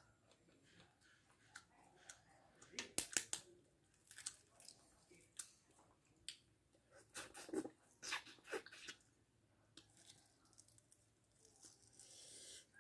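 Faint eating sounds of balut quail eggs: chewing, with sharp clicks of a metal spoon and eggshell being cracked and picked open, bunched about three seconds in and again around seven to nine seconds.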